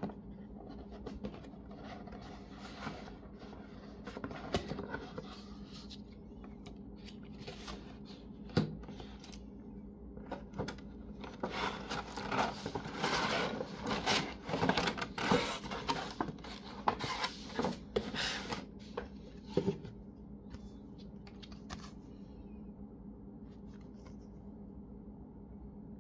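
A cardboard box lid being opened by hand, then a clear plastic bag and tray crinkling and rustling as they are handled. The crinkling is densest and loudest for several seconds in the middle, with quieter handling sounds before and after.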